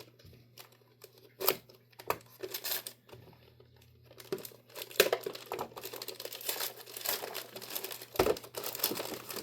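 Packaging crinkling and rustling as parts are handled and unwrapped, with a few separate sharp taps and clicks in the first half and denser, steadier crinkling from about halfway through.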